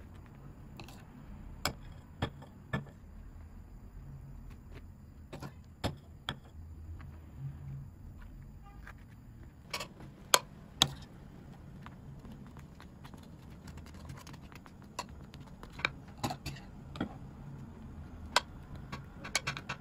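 Metal spoon clinking and tapping against a glass baking dish while icing is spread over cinnamon rolls: scattered sharp clicks, some in quick pairs or threes, over a faint low hum.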